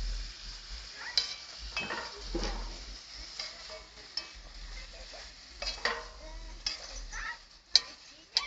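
Onions and pieces of rooster frying in oil in a pot over a wood fire, sizzling steadily while being stirred, the utensil scraping against the pot in irregular strokes, with a sharp knock near the end.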